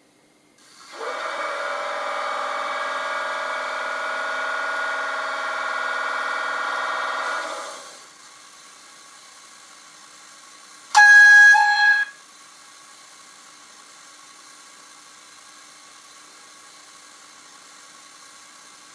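Sound playback from an N-scale class 515 battery railcar model. First a loud, steady sound of many tones for about seven seconds, fading away. Then a short two-tone horn blast about eleven seconds in, over a faint steady hum.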